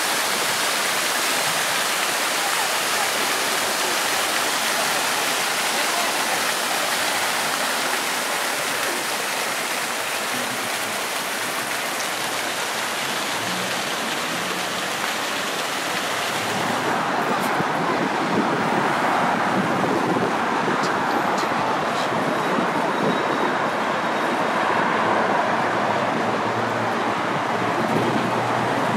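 Fountain jets splashing steadily into a stone basin. About two-thirds of the way in, the splashing gives way to city street noise: road traffic and the voices of passers-by.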